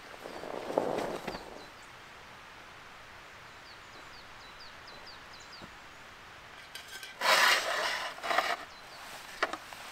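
A small bird chirping in a run of short, quick falling notes. About seven seconds in comes a loud, rough rustling in two bursts, followed by a few light clicks.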